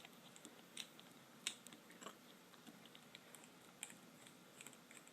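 Faint, scattered small clicks and ticks of a precision screwdriver and tiny screws against an iPhone's metal and plastic parts, over near silence.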